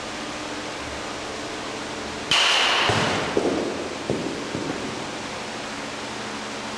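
A metal bat hits a pitched baseball with a sudden ringing ping about two seconds in, which fades over the next second. A couple of sharp knocks follow, the ball striking the cage. A steady hiss lies under it all.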